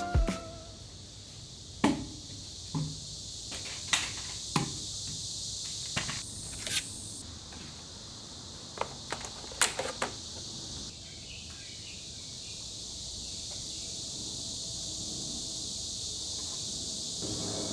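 A steady high hiss with scattered light knocks and clicks, about ten of them spread over the first ten seconds, fitting wood pieces being handled and set down.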